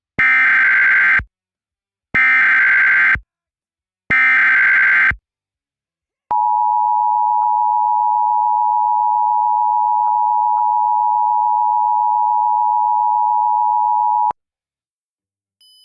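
Emergency Alert System activation: three one-second bursts of SAME digital header tones a second apart, then the steady two-tone EAS attention signal, held for about eight seconds before it cuts off.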